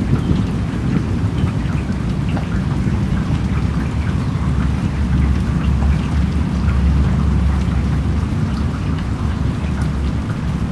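Steady rain falling, with scattered drops ticking and a low rumble that swells around the middle.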